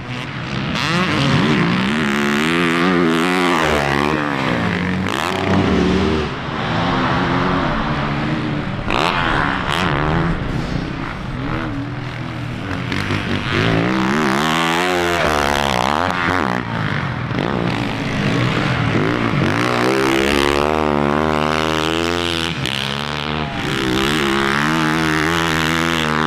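Motocross dirt bike engines revving, the pitch climbing through the gears and dropping off again over and over.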